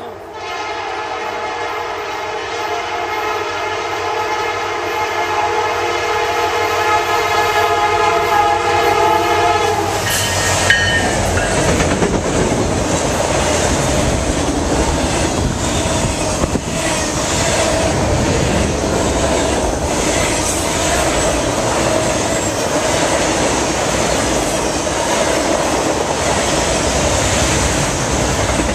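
Norfolk Southern freight train at track speed: the locomotive's horn sounds a steady chord for about the first ten seconds as it nears a grade crossing, then cuts off. The locomotives and autorack cars then rush past with a steady roar of steel wheels on rail and a clickety-clack over the rail joints.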